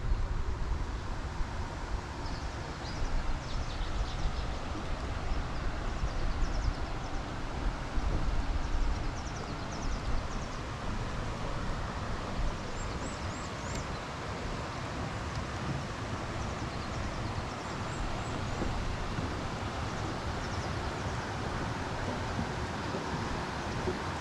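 Small birds chirping in short high calls over a steady rushing background noise, with wind buffeting the microphone in the first few seconds.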